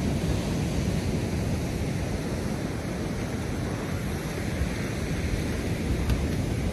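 Steady wind noise on the microphone over the wash of breaking surf on a sandy beach.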